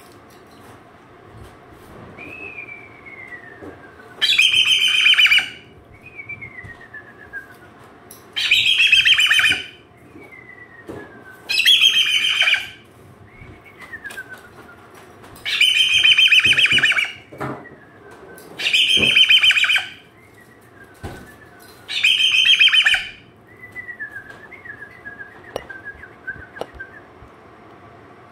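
Cockatoo flapping its wings hard while gripping its perch, in six loud bursts of about a second each. Between the bursts come soft, falling whistle-like calls.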